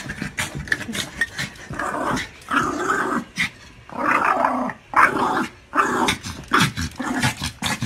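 A small dog growling in a series of short, irregular bursts.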